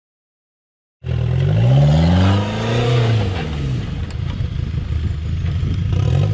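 Engine of a small off-road 4x4 cutting in about a second in, revving up and easing off as the vehicle crawls over a sand-and-dirt mound, then running unevenly under load with some clattering. The revs climb again near the end.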